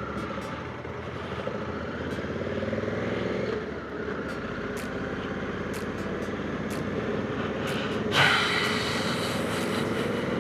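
Honda Africa Twin CRF1100L's parallel-twin engine running under way, with wind noise. The revs climb, then there is a short drop in level about three and a half seconds in. A sudden loud rush of noise comes about eight seconds in.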